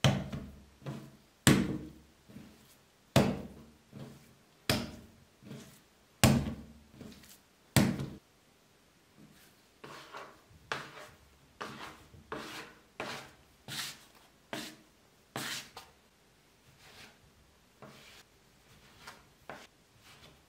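Soft yeast dough being kneaded by hand on a floured wooden board: a heavy thud about every second and a half as the dough is pushed and turned onto the board. After about nine seconds come quicker, lighter taps and scrapes as a bench scraper cuts the dough into pieces against the board.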